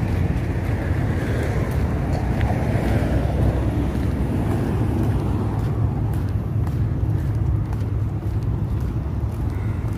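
Road traffic rumbling steadily, with a vehicle passing by and fading over the first few seconds.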